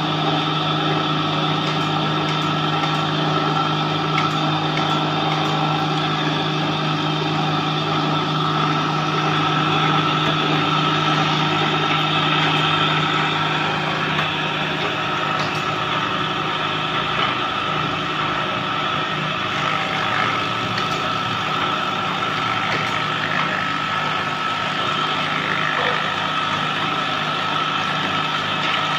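Motor-driven wood planer running steadily, a constant hum with a high whine from the spinning cutter head.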